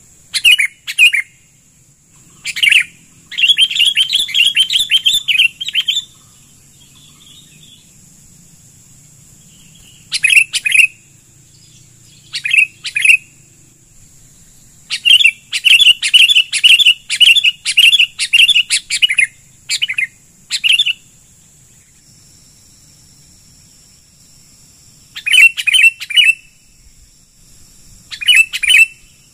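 Sooty-headed bulbuls calling in loud bursts of quick, harsh repeated notes, agitated chattering with two longer rapid runs, one about 3 s in and one from about 15 to 19 s in.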